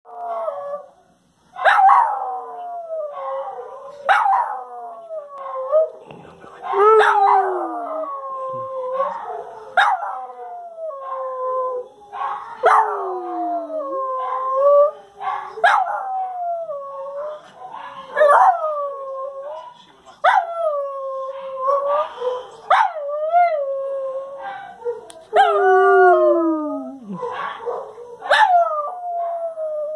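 Small black-and-white dog howling, a series of long wails that each start high and slide down in pitch, one every two to three seconds; he howls like this whenever the noon whistle blows.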